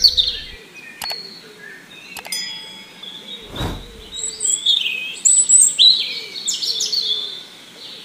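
Birdsong ambience of repeated chirps and short descending trills, with a short whoosh-like sound effect about halfway through and two faint clicks in the first few seconds.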